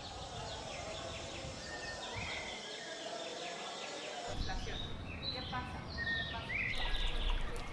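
Outdoor ambience: steady background noise with many short bird chirps and faint voices.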